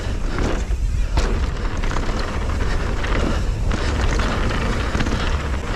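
Mountain bike riding downhill at speed on a dirt trail: wind buffeting the microphone, tyres rumbling over the ground, and short rattles and knocks as the bike hits bumps.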